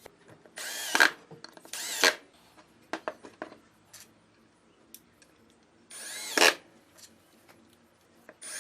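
Handheld power drill run in three short bursts of about half a second each, its whine shifting in pitch, with a few light clicks and knocks between the bursts.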